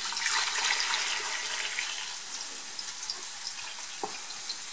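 Beef broth poured in a steady stream from a pot into a stainless steel stockpot over pieces of boiled beef, splashing as it fills. It is loudest in the first couple of seconds and settles a little as the liquid rises in the pot.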